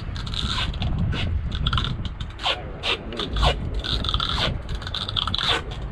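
Irregular scraping and rubbing, many short strokes, over a steady low rumble.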